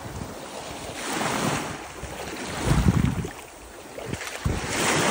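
Sea waves washing onto a beach, swelling twice, with wind gusting on the microphone in between.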